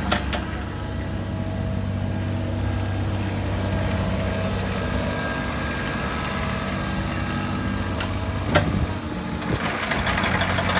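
Caterpillar 303SR mini excavator's diesel engine running steadily at idle, with a single sharp click about eight and a half seconds in and the engine sound growing louder near the end.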